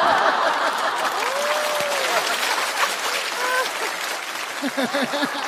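Studio audience applauding and laughing in reaction to a punchline, with scattered voices calling out over the clapping, which eases off slightly toward the end.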